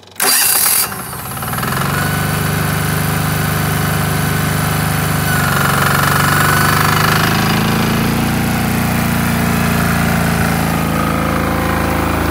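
MEP-831A generator's single-cylinder diesel engine starting: a brief loud burst about a quarter second in, then the engine catches and builds to a steady run within about two seconds. It then runs smoothly and evenly without surging.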